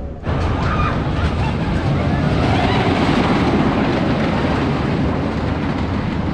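Loud steady outdoor rushing noise, heaviest in the low end, starting abruptly just after the start, with faint voices behind it.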